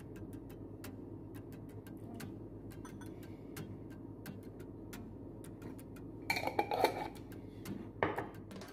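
Metal spoon scraping and tapping ground coriander out of a glass jar into a ceramic bowl: small clicks throughout, a louder clatter about six seconds in, and a knock about eight seconds in.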